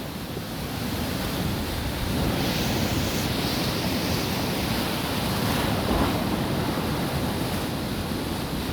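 Sea waves breaking and washing onto the shore, the surf's hiss swelling a couple of seconds in and again later, with some wind rumble on the microphone.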